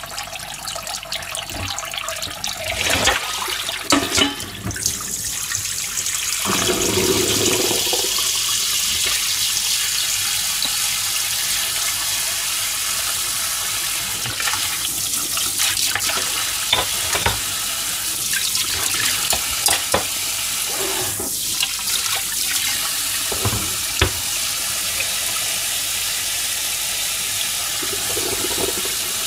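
Kitchen tap running steadily into a stainless steel bowl in a steel sink while pieces of dried herring (migaki nishin) are rinsed and rubbed by hand to wash off the rice bran, water splashing. A few sharp knocks and clinks come through now and then.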